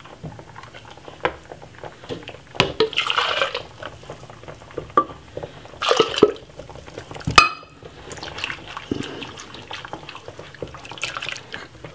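Blended cornmeal mixture poured into a saucepan of water and stirred with a wire whisk: liquid sloshing and splashing, with the whisk clicking against the pot. A single sharp knock comes about seven seconds in.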